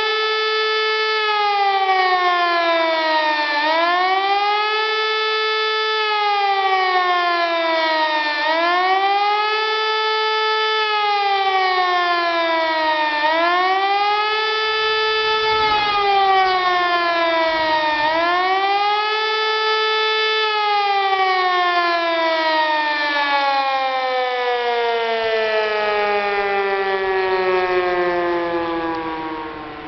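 Civil-defence warning siren sounding the German 'Warnung' alert signal during a siren test: a wailing tone with many overtones that rises and falls about every five seconds. About two-thirds of the way in it stops cycling and winds down in one long falling glide, fading near the end.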